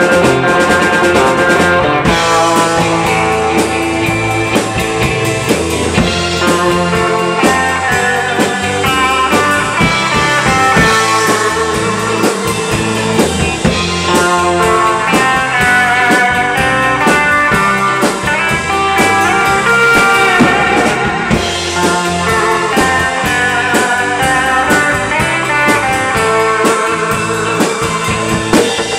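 Live band music with no vocals: an electric guitar on a Stratocaster-style body plays lead lines over a drum kit.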